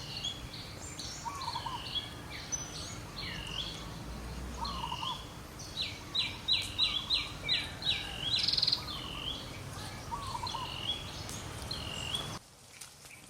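Several birds chirping over a steady background hum, with repeated short calls and a quick run of notes about six seconds in; the sound drops away just before the end.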